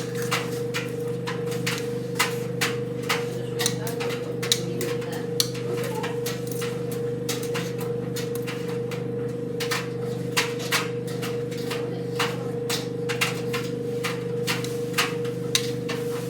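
White Knight C44A7W tumble dryer running: a steady motor hum with irregular clicks and knocks about once or twice a second, fewer for a few seconds in the middle.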